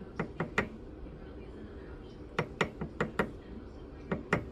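Light, sharp taps on a silver box-link chain to straighten it after welding, in three quick groups of about three, five and three taps.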